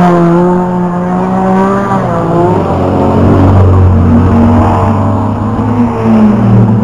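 Engines of rear-wheel-drive banger racing cars running hard through a bend. One engine note drops away about two seconds in as a car passes, and another climbs near the end as the next cars come through.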